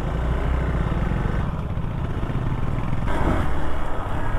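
Motorcycle engine running on the move, a fast, even firing beat, with a brief rush of noise about three seconds in.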